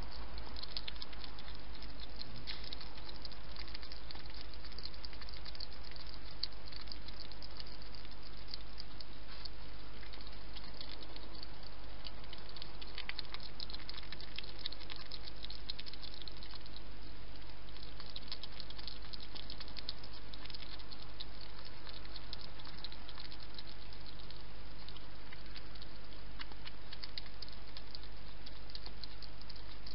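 Wild hedgehog feeding at a dish: irregular runs of small, quick, wet clicks and smacks from its mouth, coming in clusters with short pauses.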